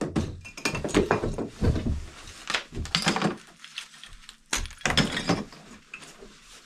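Old plaster and wood lath being pulled off a wall by hand: repeated cracking and snapping as pieces break away, with chunks of debris clattering down.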